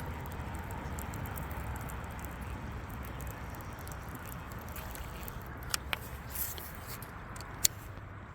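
Steady low hum and water noise around a small fishing boat, with a few sharp clicks near the end.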